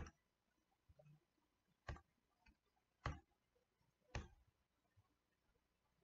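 Four faint, sharp computer mouse clicks about a second apart, clicking through presentation slides.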